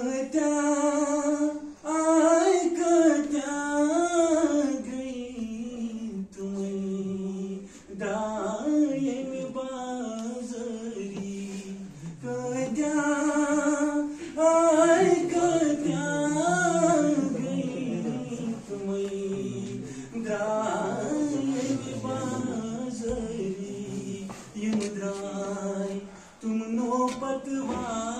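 A man singing unaccompanied in a high voice: slow melodic phrases of long, wavering held notes, with short pauses between phrases.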